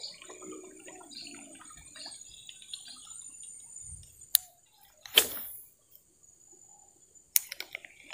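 Lure-casting tackle at work on a river: a sharp click, then a brief splash on the water about five seconds in, and near the end another sharp click followed by a quick run of smaller clicks.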